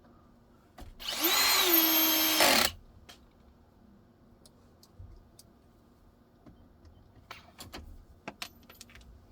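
Cordless drill-driver with a square bit driving a screw into bamboo for under two seconds, the motor spinning up and then running at a steady pitch before stopping abruptly, set low so the screw goes in just snug. A few light clicks follow near the end.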